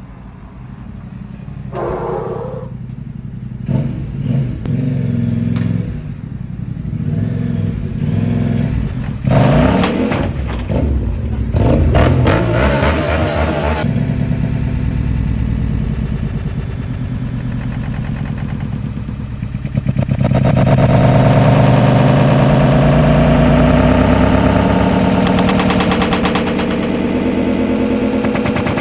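Yamaha Ténéré 700's parallel-twin engine running, revved sharply a few times about nine to thirteen seconds in, then running louder and steady from about twenty seconds on.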